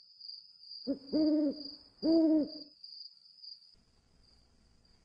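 An owl hooting twice, each hoot about half a second long, over a steady high cricket trill.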